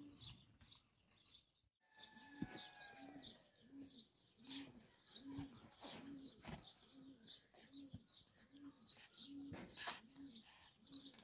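Small birds chirping, with a pigeon cooing in a low note repeated about twice a second. A single sharp click sounds near the end.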